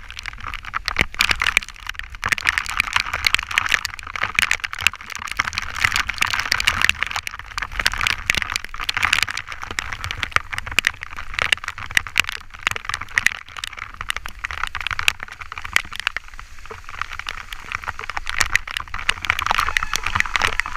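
Bicycle tyres hissing on a rain-soaked road, with many sharp taps of raindrops striking the GoPro and a low rumble of wind on the camera.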